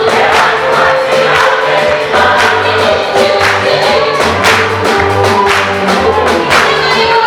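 A choir singing African gospel music with band backing, over a low moving bass line and a steady beat.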